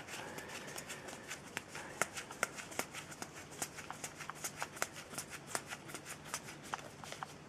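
Yu-Gi-Oh trading cards being slid off a held stack one at a time as they are counted. It is a steady run of light card snaps and flicks, several a second.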